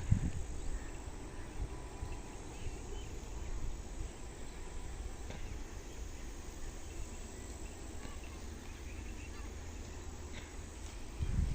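Quiet farmyard background: a steady low rumble with faint, scattered high chirps, and a short louder low noise near the end.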